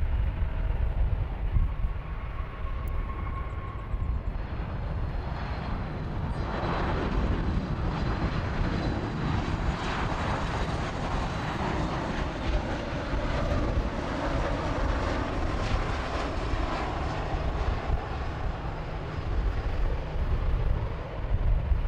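Jet airliner passing, its engine noise building about six seconds in, loudest in the middle and easing off near the end, over a steady low rumble.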